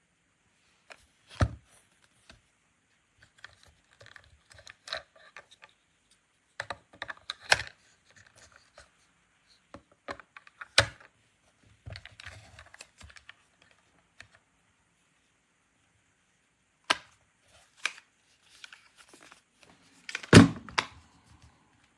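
Scattered clicks, taps and rustles of objects being handled, with a few sharper knocks about 1.5, 7.5, 11 and 17 seconds in and the loudest knock about 20 seconds in.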